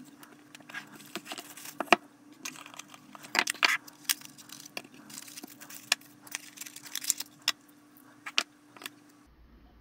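Packaging being handled during an unboxing: a cloth drawstring pouch and a cardboard box insert rustling, and coiled cords being lifted out, with many sharp clicks and taps and a louder burst of rustling about three and a half seconds in.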